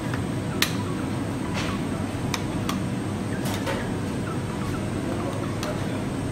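Metal bench scraper cutting through bread dough and striking the granite counter: a series of sharp, irregular clicks over steady low background noise.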